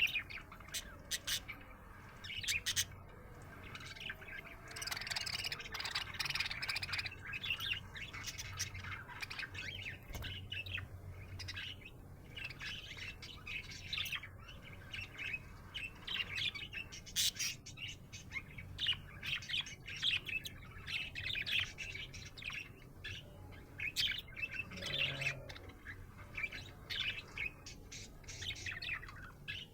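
Budgerigar chirping and warbling steadily: a busy run of rapid, high chirps with some harsher squawky notes, the chatter of a contented budgie.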